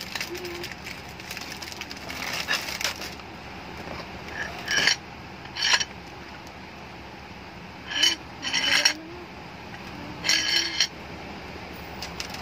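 Metal sizzling plate in its plastic wrapping being handled and turned over on a wooden base: several short clinks and crinkles, a second or two apart.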